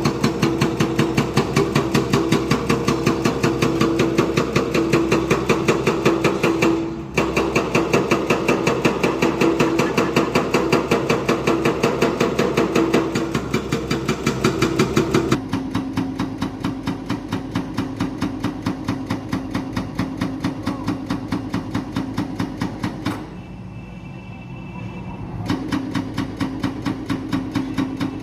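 JCB 3DX backhoe loader's diesel engine running with a fast, even knocking beat over a steady hum. The sound changes abruptly twice and drops quieter for a couple of seconds near the end.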